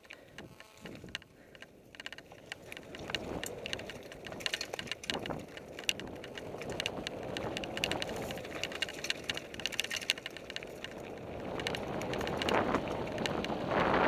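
Fuji Thrill LTX mountain bike rolling fast down a dirt singletrack. The knobby tyres crunch over dirt and small rocks, and the bike rattles and clicks over the bumps. The noise grows steadily louder as the speed builds.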